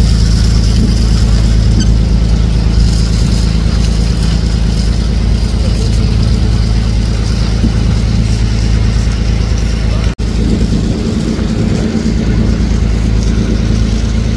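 Fishing boat's diesel engine running steadily at cruising speed, a loud constant drone.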